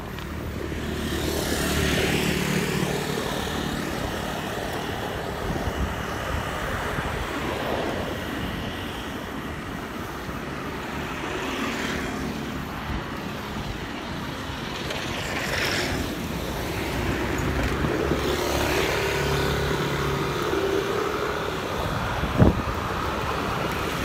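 Motor vehicles passing on the road one after another, each swelling and fading, over a steady rush of wind on the microphone of a moving bicycle. A single sharp click near the end.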